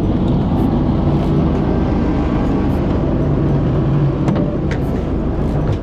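Fishing boat's engine running steadily, with two light knocks a little after four seconds in.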